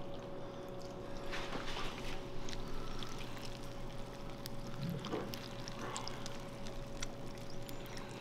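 Milk pouring from a carton in a thin, steady stream onto dry cereal in a ceramic bowl: a soft, continuous trickle. A faint steady hum lies underneath.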